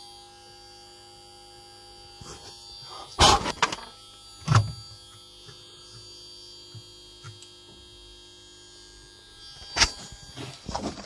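Steady electrical hum with a faint high whine from the solar battery-charging equipment. Loud knocks and rubbing from the phone being handled against the cables come about three seconds in, again a second later, and near the end.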